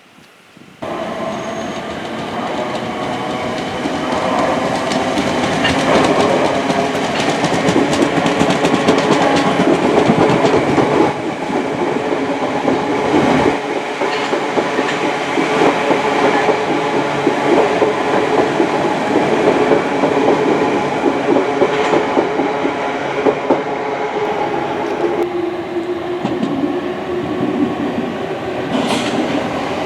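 Passenger train running past on the tracks below, its wheels clattering over the rails in a continuous rumble. The sound starts abruptly about a second in.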